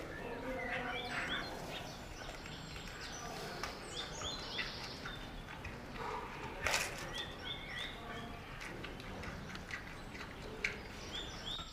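Small birds chirping in short repeated falling notes over a steady outdoor hush, while a giant panda chews a bamboo shoot, with one loud crunch of bamboo about seven seconds in.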